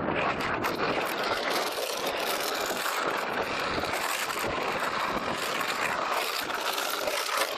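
Longboard wheels rolling over rough asphalt: a steady rush of road noise.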